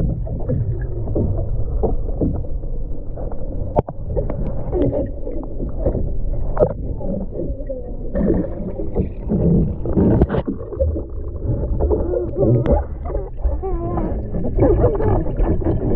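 Muffled sloshing and splashing of swimming-pool water as people move about in it, with a few sharp knocks.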